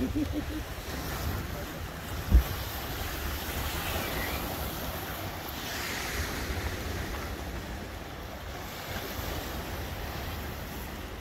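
Choppy lake waves washing and splashing against shoreline rocks, with wind buffeting the microphone. A single sharp thump comes about two seconds in.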